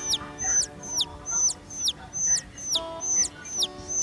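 Cartoon chick-peep sound effect: quick high chirps that each fall in pitch, repeating evenly about three times a second, over soft background music.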